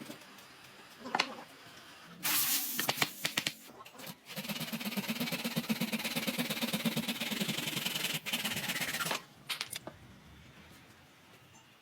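Knocks and a short burst of noise, then a woodworking power tool running on wood for about five seconds with a fast, even pulse, stopping abruptly.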